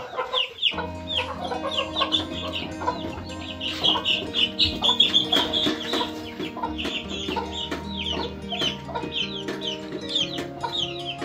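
Baby poultry peeping: many short, high, falling peeps, repeated quickly and without a break, over steady background music that comes in just under a second in.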